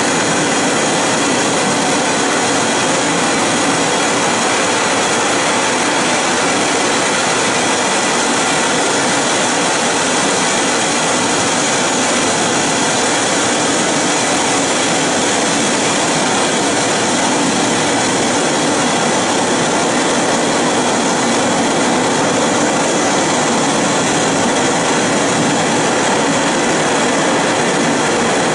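A loud, steady rushing noise that never changes or breaks, with no rhythm or distinct events.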